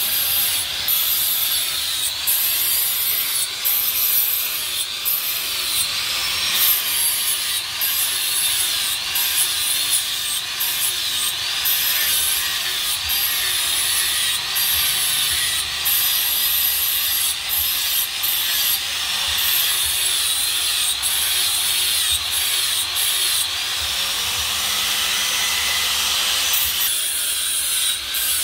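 Handheld angle grinder grinding the edges of forged steel knife blades: a steady high motor whine whose pitch wavers as the disc bites into the steel. Near the end the grinding noise drops away as the disc comes off the blade.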